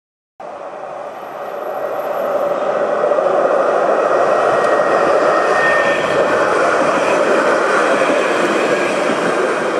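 Electric tram passing close by: the rolling noise of its steel wheels on the rails, starting suddenly, swelling over the first few seconds and then holding steady, with a faint brief whine about halfway through.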